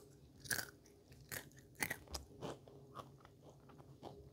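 A child chewing a potato crisp with her mouth close to the microphone: about six short, irregular crunches.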